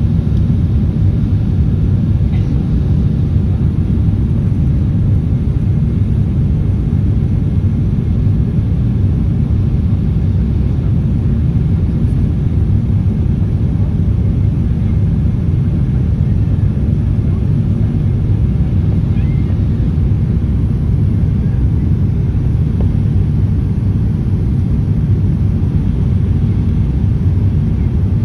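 Steady low rumble of airliner cabin noise, engines and airflow heard from a window seat over the wing, during the descent toward landing.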